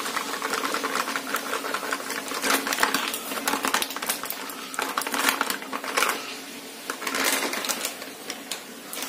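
Crinkly plastic flour packet rustling and crackling as it is tipped and shaken, white flour pouring out onto a steel plate, in irregular spurts with a faint steady hum underneath.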